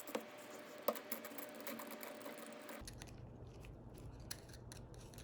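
Faint, irregular clicks and scraping from an open ratchet head as grease is worked into its main gear and pawl mechanism, with a couple of sharper clicks in the first second.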